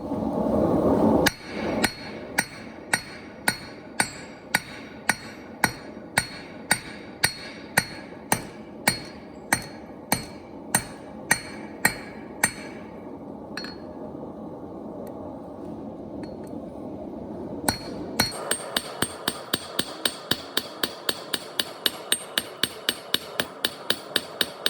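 Blacksmith's hammer striking a hot railroad spike on an anvil, each blow ringing. It opens with a short rush of noise, then gives a steady run of blows about every 0.7 s. After a pause of about five seconds come quicker, lighter taps.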